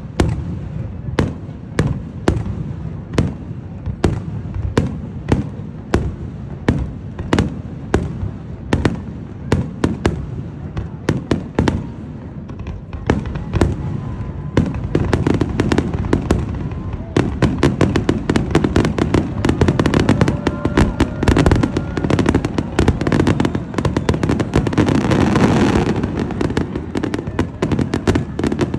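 Fireworks going off in a steady string of sharp bangs, about two a second, then from about halfway through a denser, louder barrage of overlapping bangs and crackle.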